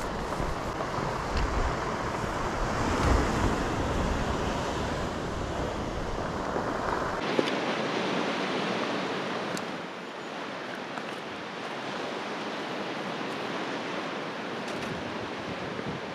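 Sea surf washing against a rocky shore, with wind rumbling on the microphone until about seven seconds in, when the rumble stops abruptly and the surf carries on more evenly.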